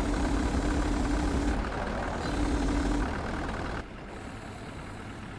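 An engine running steadily, with a held droning tone that sounds twice in the first three seconds. The sound drops abruptly in level a little before four seconds in.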